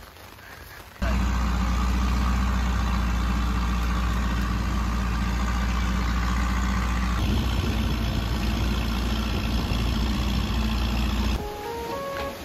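Longtail boat's engine running steadily under way, a loud low drone heard from aboard the boat; the drone changes slightly about seven seconds in. Near the end it gives way to soft background music.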